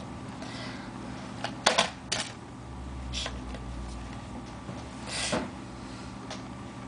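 Handling noises: a few sharp knocks and taps close together about two seconds in, then rustles, as sheets of paper are put aside and a ukulele is picked up, over a steady low hum.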